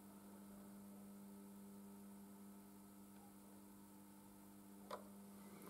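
Near silence with a faint steady electrical hum, and a single faint click about five seconds in.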